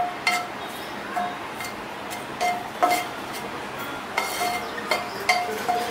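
Wooden spatula stirring curry leaves in a nonstick frying pan, knocking and scraping against the pan about a dozen times at an uneven pace, each knock with a short metallic ring.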